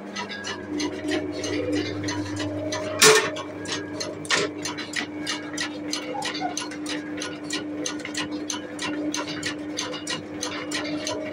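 Belt-driven chaff cutter running empty on its rewound electric motor, with a steady motor hum and regular clicking about four times a second from the spinning knife drum. A loud knock comes about three seconds in and a lighter one about four and a half seconds in. The machine is running after repair with its knives freshly adjusted.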